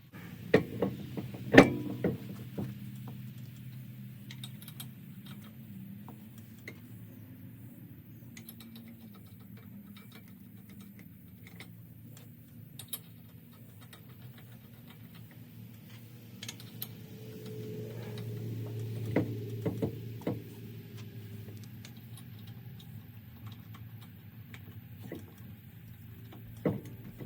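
Scattered metal clicks and clinks of hand tools and brake parts being handled, over a steady low hum. The clicks are loudest in the first couple of seconds, with more of them about two-thirds of the way through.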